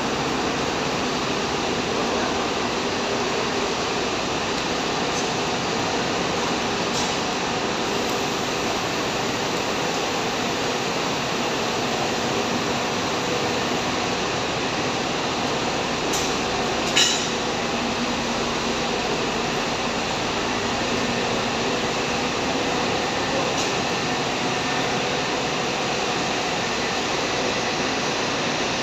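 Steady drone of idling double-decker coaches, engines and air-conditioning running, in an enclosed concrete bus terminal, with a low hum under it. A single sharp clink sounds about two-thirds of the way through.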